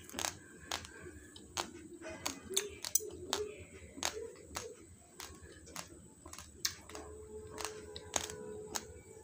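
Raw basmati rice being crunched between the teeth: sharp, irregular cracks, a few a second. Faint music plays underneath.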